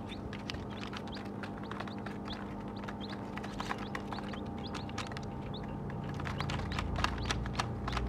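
Baby chicks pecking at crumble feed in a plastic tray: a rapid, irregular patter of sharp clicks, with short high peeps from the chicks in between. A steady low hum runs underneath, and a low rumble swells in about three quarters of the way through.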